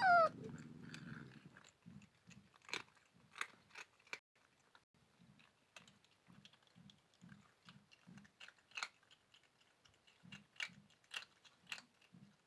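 Cat and kitten crunching and chewing sev, a crisp fried snack: scattered sharp crunches over a steady chewing rhythm. A short meow comes at the very start, followed by about a second of low rumbling.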